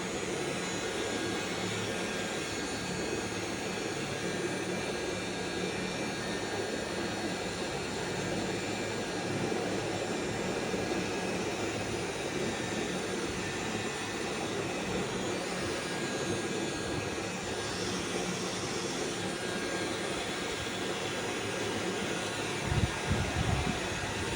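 Steady mechanical whirring from a spinning device, holding an even pitch throughout, with a few low knocks near the end.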